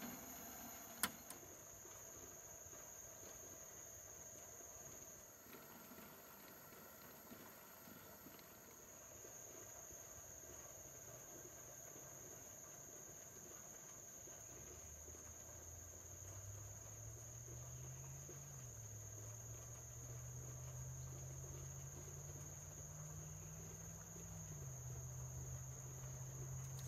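Insects droning steadily in one high continuous tone, with a single sharp click about a second in. From about halfway a low hum comes in underneath, wavering up and down in pitch.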